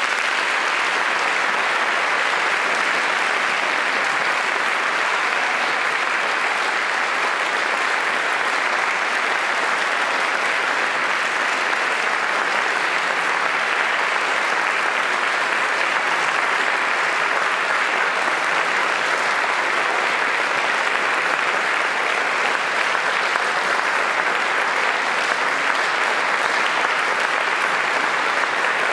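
Concert audience applauding steadily in a large hall at the end of an orchestral performance.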